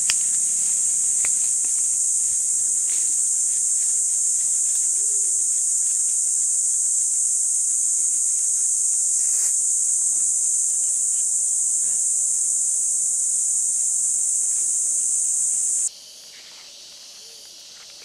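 Loud, steady, high-pitched drone of a rainforest insect chorus, cutting off suddenly near the end.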